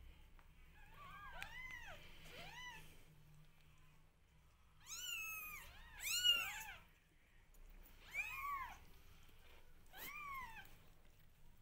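Newborn kittens mewing in short, high-pitched, arching cries. A cluster of small mews comes first, then louder ones about halfway through, the loudest about six seconds in, and two more single cries near the end.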